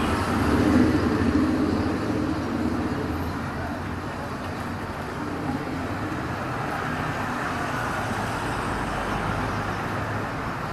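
Street traffic of motorbike engines and cars passing, a steady hum of road noise that is louder in the first two seconds.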